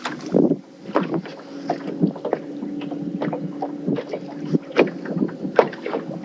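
Irregular knocks and clicks of handling gear in a fishing boat, with a steady low hum for about three seconds in the middle.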